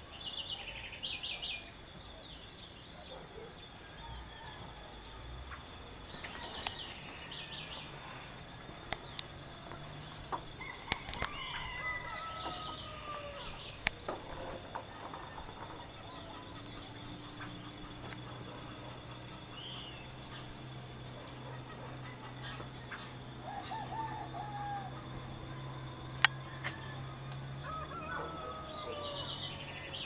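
Early-morning chorus of many birds calling at once: rapid high trills, short chirps and whistled notes that slide up and down, with a steady high-pitched insect drone. A low hum runs under the middle stretch, and a few sharp clicks stand out.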